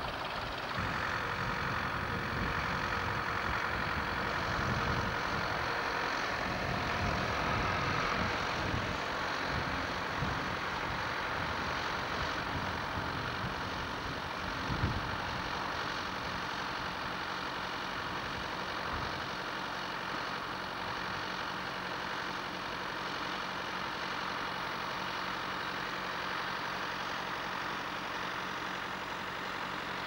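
Farm tractor diesel engine running with a rough low rumble, settling about two-thirds of the way through into a steady idle.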